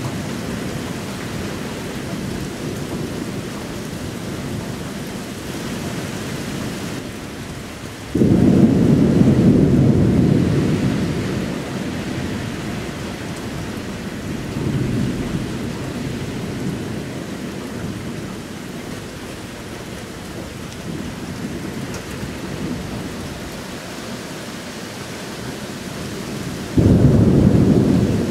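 Thunder rumbling over steady rain. A sudden loud peal breaks about eight seconds in and rolls on for a few seconds, and another starts abruptly near the end.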